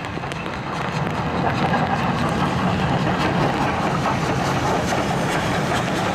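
Steam locomotive hauling a train of coaches running past at speed: a steady rush of steam and wheels that grows louder about a second in, with scattered faint clicks.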